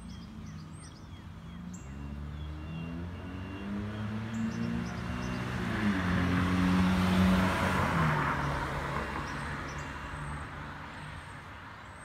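A car driving past on the street. Its engine and tyre noise swell to a peak about seven seconds in, the engine's pitch dropping as it passes, then fade. Faint bird chirps now and then.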